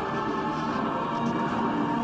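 Background music with sustained, held notes.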